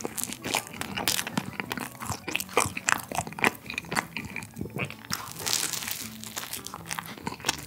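Close-miked eating of a soft Greek yogurt whipped-cream bun: bites and chewing with many irregular wet mouth clicks and smacks. Quiet background music under it.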